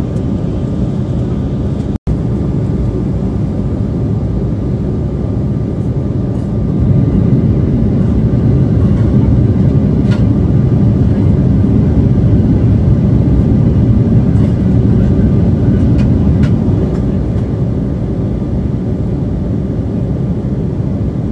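Steady low rumble of an Embraer 175 jet's cabin in flight: airflow and its twin turbofan engines heard from a window seat. It swells a little louder for about ten seconds midway, and there is a split-second dropout about two seconds in.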